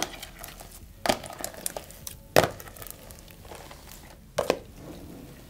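A clear plastic tub knocking and scraping against a tabletop in a handful of sharp knocks, one at the start, one about a second in, a loud one near the middle and a quick double knock near the end, as thick clear slime is tipped out of it onto a pile of bingsu beads.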